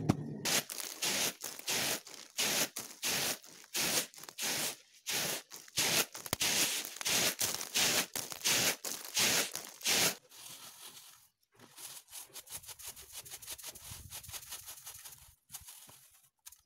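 Paddy being winnowed on a flat bamboo winnowing tray: a regular run of rustling swishes, about two a second, as the grain is tossed and the chaff blown off. About ten seconds in, the swishes give way to a softer, denser rustle of grain on the tray.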